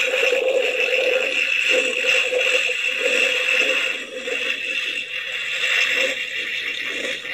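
Spirit Halloween proton pack toy's electronic sound effect playing through its small built-in speaker: a steady electronic hum with a higher tone over it, the lower tone pulsing about once a second, a little quieter from about four seconds in.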